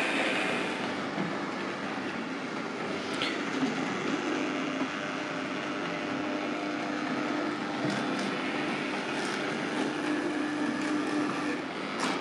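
Märklin H0 model trains running on metal track: a steady rattling rumble of the wheels with a hum under it, and a few sharp clicks about 3 s, 8 s and 12 s in.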